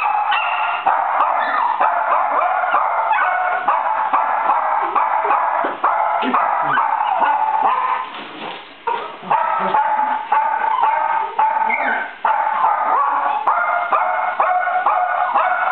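Small dogs barking at something overhead, in a rapid, high-pitched, almost unbroken string of barks, with a brief lull about eight seconds in.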